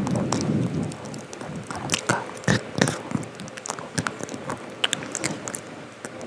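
Close-miked ASMR sounds: an irregular run of sharp clicks and taps over soft rustling, denser in the first second.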